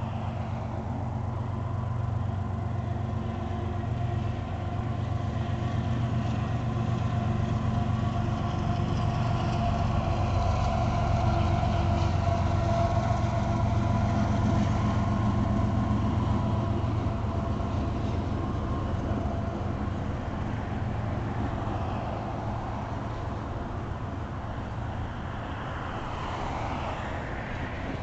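Union Pacific double-stack intermodal freight train passing, its diesel locomotives' engine drone mixed with the rumble of rolling rail cars. The sound builds to its loudest about halfway through, then eases off.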